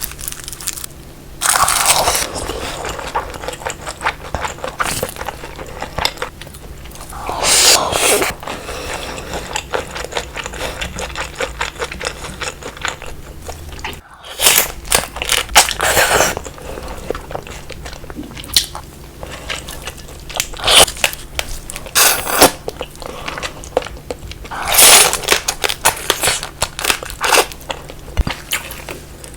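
Close-up eating of marinated raw crab (gejang): crab shell crunching and cracking between the teeth, with chewing. Dense clicks run throughout, with several longer, louder bursts.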